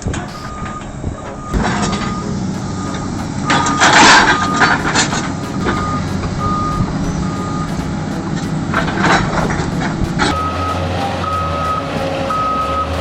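Heavy machine's reversing alarm beeping steadily about once a second over a running diesel engine. Loud rushing bursts of noise break in around four seconds in and again near nine seconds.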